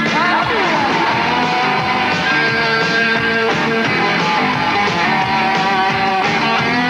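Rock music with electric guitar, with a note that slides down in pitch in the first second.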